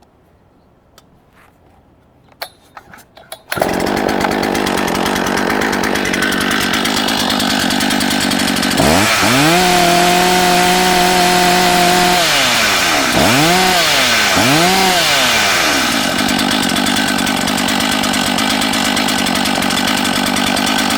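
Efco MT8200 80cc two-stroke chainsaw catching with a sudden start about three and a half seconds in, after a few clicks, and idling. It is revved to full speed and held for about three seconds, dropped back, blipped twice, then left idling.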